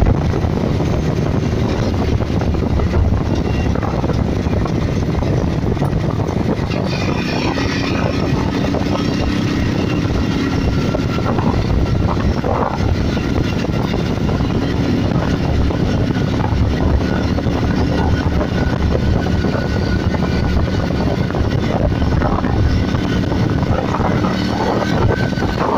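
Passenger train running at speed over a railway bridge, heard from inside the carriage: a steady, loud rumble of wheels on rails and rushing air, with a few faint steady whining tones above it.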